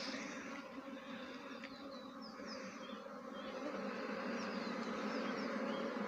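A swarm of honey bees buzzing in a steady drone around and over the frames of an open hive box. The hum grows a little louder in the second half.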